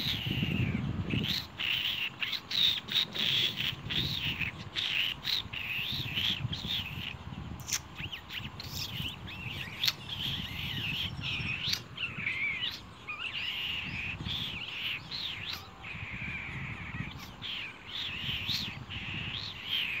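Nestling songbirds begging for food in the nest: a near-continuous run of short, high calls that slide up and down in pitch, with a few sharp clicks among them.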